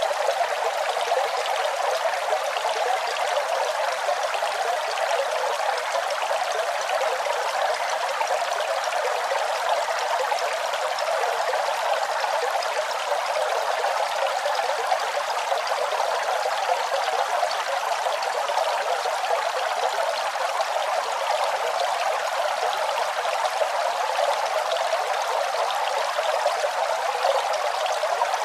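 Small garden fountain: water trickling and splashing steadily into its basin.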